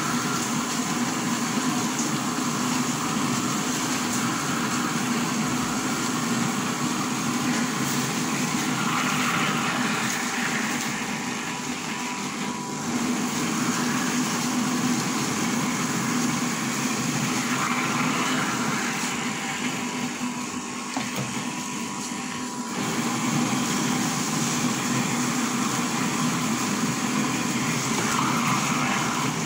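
Small electric soybean grinder motor running steadily while it grinds soaked soybeans with water into soy milk, its sound dipping briefly twice.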